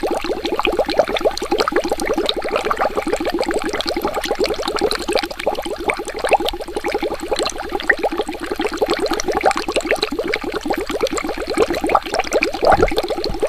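Water bubbling without pause: a dense stream of many small bubbles popping.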